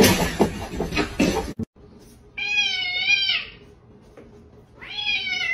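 A cat meowing twice, each a long drawn-out call about a second long with a wavering pitch. Before the meows comes a noisy clattering with clicks that cuts off abruptly about a second and a half in.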